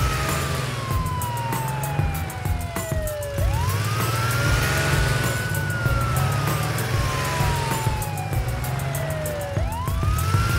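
Police siren in a slow wail: each cycle rises quickly, holds, then falls slowly over about six seconds, rising again twice. Background music with a steady beat plays under it.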